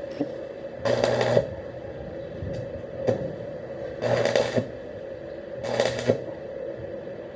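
Electric arc welding in short bursts: the arc crackles and sputters for about half a second at a time, three times, over the steady hum of the welding machine.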